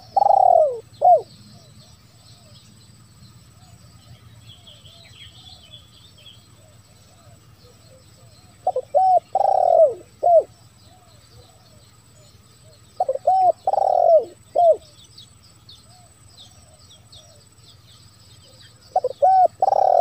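Spotted dove cooing: repeated phrases of a few short notes around one long, strong coo and a short closing note, coming every four to eight seconds. Small birds chirp faintly in the background.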